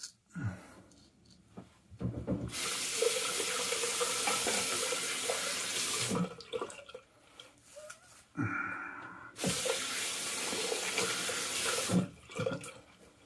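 Bathroom tap running into a sink in two spells of about three seconds each, with splashing and small knocks between. It is water for rinsing off shaving lather partway through a straight-razor shave.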